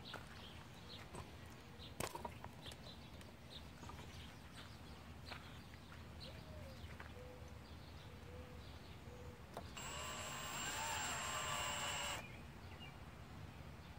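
Cordless drill driving a screw into a pressure-treated wooden step for about two seconds, starting near the ten-second mark and stopping abruptly. Before it, light knocks and clicks of boards and tools being handled.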